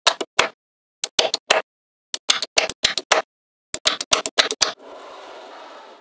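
Small neodymium magnetic balls clicking together in quick clusters of sharp clacks as slabs of balls are snapped into place, followed near the end by about a second of steady scraping as a slab slides across the tabletop.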